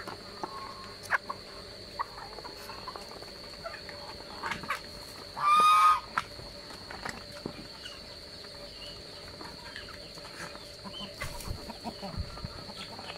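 Mixed flock of chickens, Muscovy ducks and domestic geese pecking food off the ground: scattered sharp pecks and short clucking calls, with one loud, short call about five and a half seconds in. A steady high-pitched tone runs underneath.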